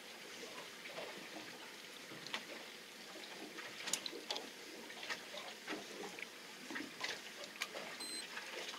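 Sea water lapping and splashing against a small boat's hull, with scattered light clicks and taps. A brief high beep sounds about eight seconds in.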